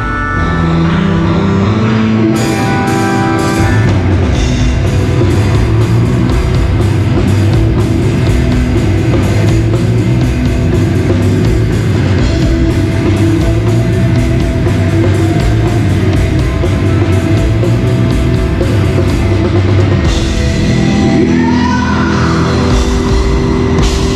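A rock band playing live: drum kit with steady cymbal hits, guitars and keys, with singing in places. The cymbal hits thin out for a few seconds near the end, then come back.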